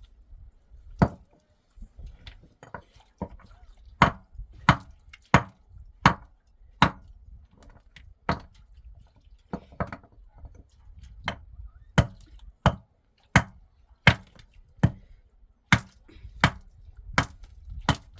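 A hand tool strikes again and again in steady chopping blows, roughly three every two seconds. A single blow comes about a second in, then a short pause, then a regular run of blows.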